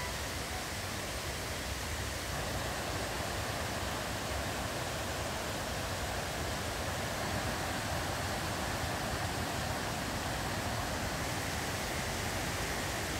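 Steady rushing of water from a large river waterfall.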